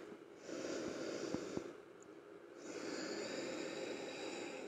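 A woman's slow, audible breathing: two long, even breaths, the second starting about halfway through.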